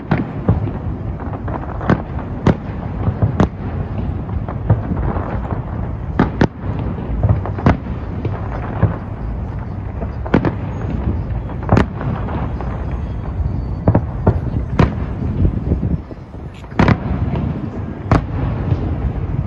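Fireworks display: aerial shells bursting in loud, sharp bangs and cracks, irregularly spaced about every second or two, over a steady low rumble.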